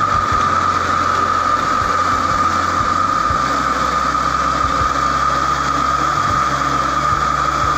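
Miyako electric countertop blender running steadily, its motor giving a constant high-pitched whine as it purees a thick spice paste.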